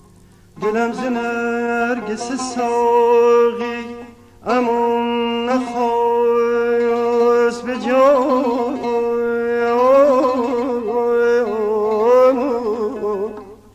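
Male vocalist singing a Persian classical avaz in dastgah Shur: long held notes broken by wavering melismatic ornaments (tahrir), in two phrases, the second starting about four and a half seconds in and ending shortly before the end.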